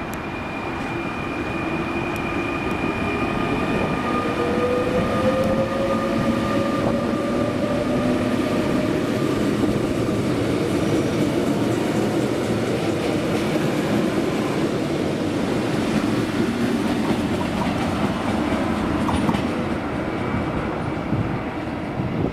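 Fertagus 3500-series double-deck electric multiple unit pulling out of the station and accelerating. Its motor whine rises in pitch over the first several seconds over a steady rumble of wheels on rail, growing louder and then holding.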